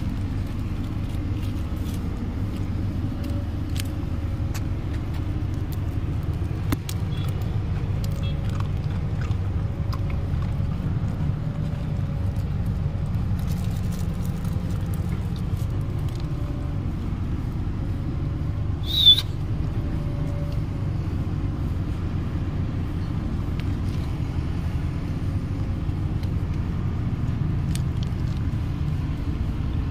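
Steady low rumble of road traffic and engines, with faint scattered clicks and one short, sharp, high-pitched squeak about nineteen seconds in.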